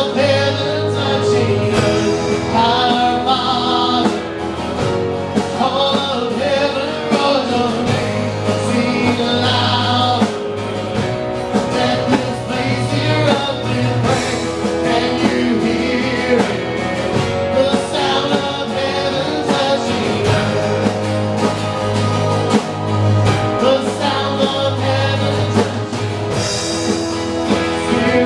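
Live contemporary worship song: several vocalists singing together over guitars and keyboard, with a steady low accompaniment throughout.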